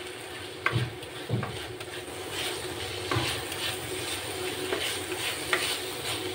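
Plastic spatula stirring chopped tomatoes and capsicum in a non-stick frying pan, the vegetables sizzling steadily, with a few knocks of the spatula against the pan.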